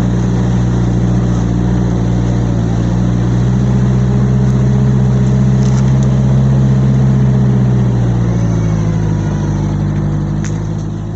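A motor engine running steadily; its pitch eases down a little about eight seconds in.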